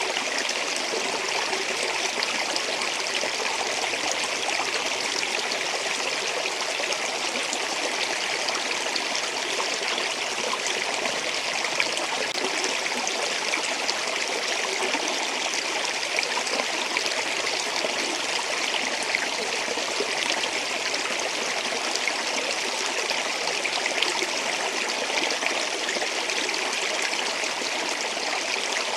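Running water flowing steadily, a continuous even rush with a bright hiss in the upper range and no pauses.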